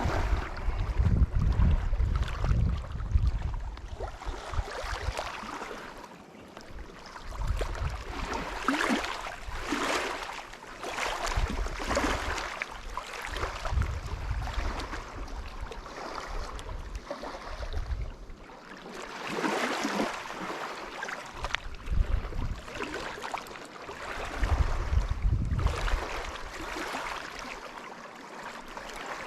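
Wind buffeting the microphone outdoors, rumbling in gusts every few seconds, with a rushing hiss in between.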